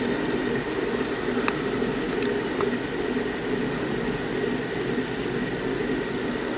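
Harbor Breeze Marco Island ceiling fan running with a steady hum and a faint high steady tone, with a few light ticks. The motor hums noticeably, which the owner calls very noisy, though not loud enough to make the fan unusable.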